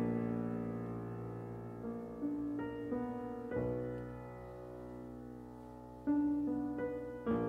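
Solo piano passage in a 1960s art song for bass voice and piano, with the voice silent. Chords are struck and left to ring and fade, a deep bass chord comes in about halfway, and four notes are struck in quick succession near the end.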